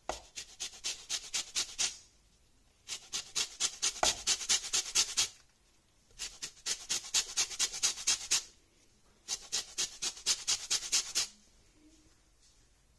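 Lemon peel being grated on the fine side of a flat stainless-steel grater: four runs of quick back-and-forth grating strokes, about five a second, with short pauses between.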